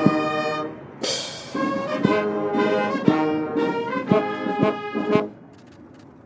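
Brass band playing held chords with drum beats and a crash about a second in; the music stops abruptly about five seconds in.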